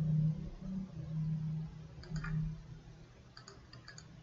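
Computer keyboard keys and mouse buttons clicking: a few clicks about two seconds in, then a quick cluster of clicks near the end, over a low hum during the first half.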